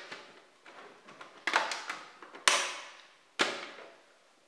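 Plastic and sheet-metal casing of a Canon LBP-2900 laser printer being worked loose by hand: a series of sharp knocks and clacks, three of them loud, the loudest about two and a half seconds in.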